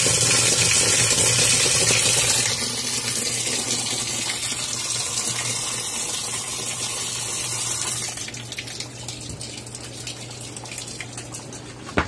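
Tap water gushing from the second water inlet of a twin-tub washing machine and falling straight down into the machine. It gets quieter about two and a half seconds in and again near eight seconds in, over a steady low hum.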